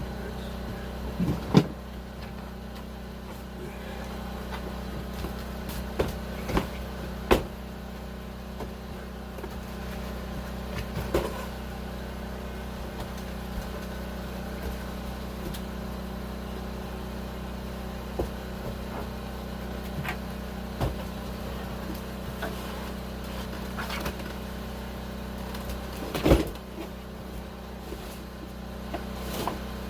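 A steady low machine hum, with scattered knocks and thumps, the loudest near the start and about 26 seconds in.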